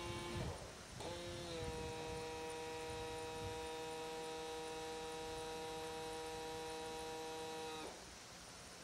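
Electric starter motor whining steadily as it cranks a model helicopter's OS .61SX glow engine, which does not fire. It starts about a second in, dips slightly in pitch as it takes the load, and stops shortly before the end.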